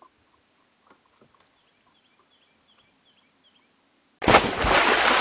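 A few faint clicks and a short run of faint bird chirps, then about four seconds in a sudden loud rushing noise that starts abruptly and slowly dies away.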